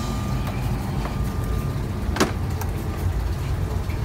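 Steady low rumble of background machinery, with one sharp knock about two seconds in as a black plastic basket of live eels is set down.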